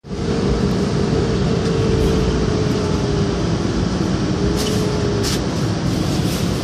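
Interior noise of a city bus: a steady engine and road rumble with a faint steady whine. Two brief bursts of hiss come a little past the middle.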